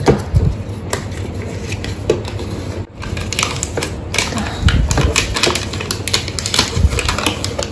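Adhesive protective film being peeled by hand off the inside panel of a makeup case lid: a dense, crackling run of small ticks as the adhesive lets go, busier from about three seconds in, with a few soft handling thumps.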